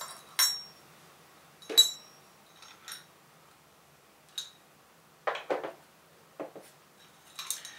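Small metal clinks of a hex key and loose screws being worked out of a telescope mount head's base plate: single sharp clinks with a short ring about a second apart, the loudest near two seconds in, then a few duller knocks of the metal head being handled and a quick cluster of clinks near the end.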